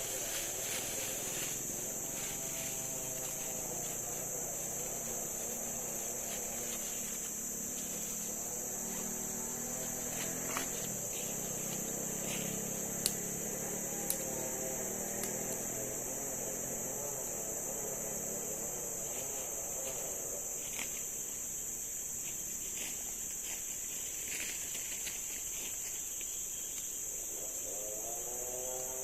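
Steady chorus of forest insects, a continuous high-pitched drone at two pitches, with a few sharp clicks near the middle.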